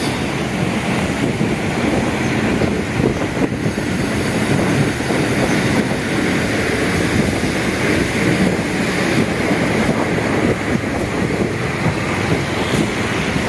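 Steady rumble and buffeting of wind on the camera's microphone outdoors, with street ambience under it.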